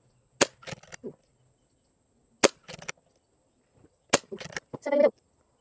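Three shots from a Brocock (BRK) Sniper XR Sahara PCP air rifle, about two seconds apart, each a sharp crack followed by a few quick lighter clicks. A short pitched sound follows the third shot near the end.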